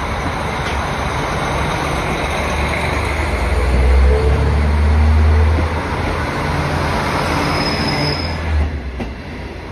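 KiHa 40 series diesel railcars pulling away from the platform and passing close by: a low diesel engine drone under load, loudest midway as the cars go by, over the rumble of the wheels. A brief thin high tone sounds near the end before the sound falls away.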